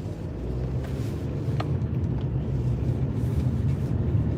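Car engine and road noise heard from inside the cabin while driving, growing steadily louder as the car gathers speed.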